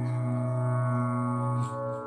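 Devotional music: one long note held steady in pitch, which breaks off about one and a half seconds in, followed by a short breathy sound and softer new notes.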